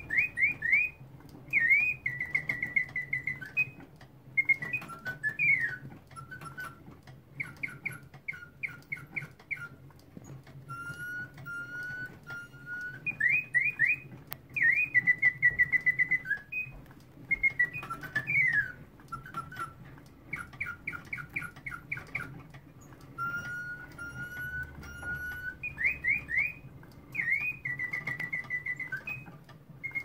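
A Bontems singing bird automaton playing its mechanical birdsong of chirps, swooping notes and rapid trills. The same song repeats about every twelve seconds over a faint low hum.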